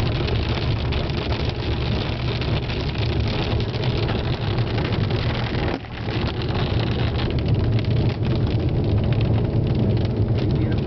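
Steady storm noise heard from inside a car: a deep rumble with wind and rain on the glass. It drops out briefly a little past halfway.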